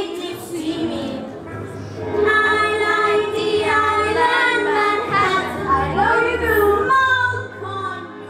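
A young female voice singing a show tune over instrumental backing, with a low bass line underneath.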